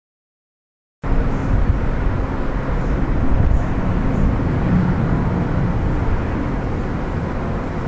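Steady outdoor rumble of ambient noise on a camcorder's built-in microphone. It starts suddenly about a second in and is mostly deep.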